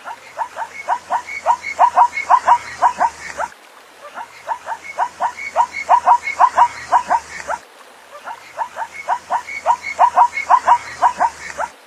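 A zebra calling in runs of quick, sharp yelps, about five a second. Three such runs of about three and a half seconds each are separated by brief pauses.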